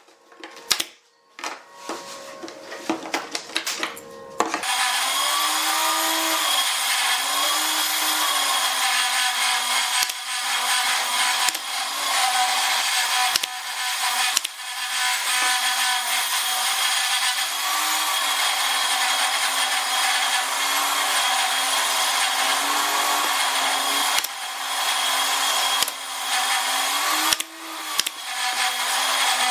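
Pneumatic brad nailer firing nails into pine seat slats: several sharp single shots, spaced seconds apart. From about four and a half seconds in they sit over a loud, steady motor running.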